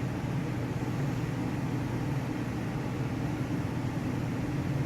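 Gas furnace fan running with a steady hum while the furnace cycles: the burners are not lighting.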